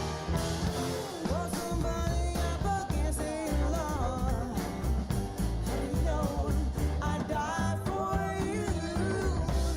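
A rock song with a sung vocal over guitar, bass and a steady beat.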